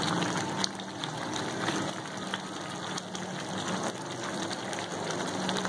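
Thick spinach curry simmering in a pan, bubbling steadily with occasional pops.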